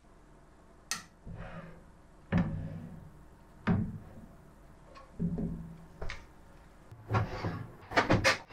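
A series of knocks and clunks of things being handled and set down, roughly one a second, with a quicker run of clicks and knocks near the end.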